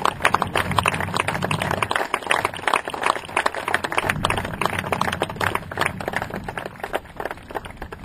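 Crowd applauding: many hands clapping at once, slowly dying down toward the end.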